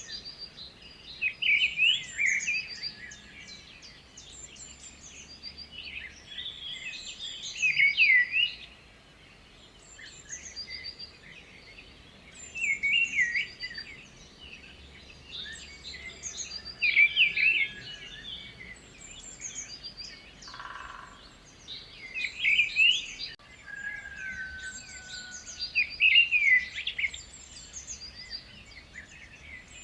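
Birdsong: a bird repeats a short warbling phrase every four to five seconds, and other high chirps come in between.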